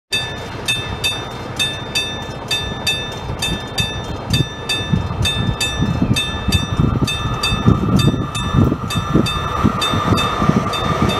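ŽSSK class 240 electric locomotive hauling an express train, approaching: a low rail rumble that grows louder over the second half. Throughout, a steady high-pitched ticking repeats about two to three times a second.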